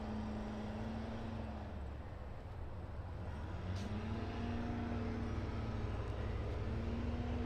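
Tractor engine running steadily in the background, its pitch dipping and then rising again about halfway through.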